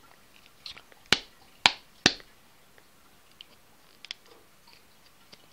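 Three sharp plastic clicks about half a second apart, then a few faint ticks near the end, as a smartphone's housing and a small screwdriver are handled while the back screws are being worked out.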